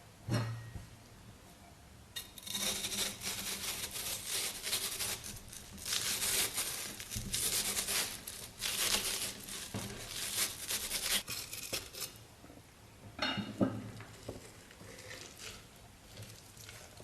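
Close-miked crackling and crinkling from handling food and utensils, lasting about ten seconds, with a low thump shortly after the start and another a few seconds before the end.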